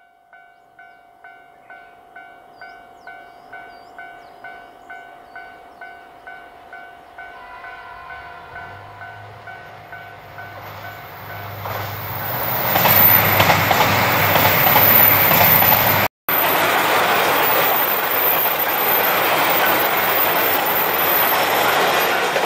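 Japanese railway level-crossing warning bell ringing at about two strokes a second. A JR Hokkaido KiHa 261 series diesel limited express then approaches and passes close by, its diesel engines and wheels on the rails growing loud from about twelve seconds in and drowning out the bell. The sound breaks off for a moment about sixteen seconds in.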